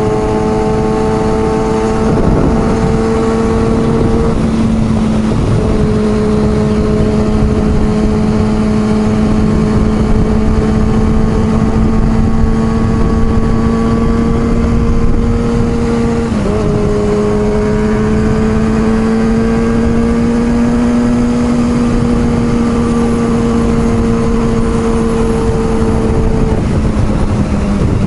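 Motorcycle engine running at a steady cruising speed, its note holding nearly level in pitch. The note drops out briefly about four seconds in and dips sharply just past halfway, under a constant rush of wind noise.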